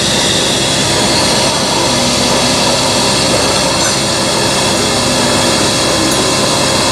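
Costa self-serve coffee machine running as it dispenses a milky coffee into a paper cup: a loud, steady mechanical whir.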